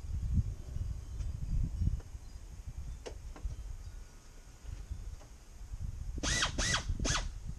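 Low rumble of wind on the microphone. Near the end a bird calls four times in quick succession, each call rising and then falling in pitch.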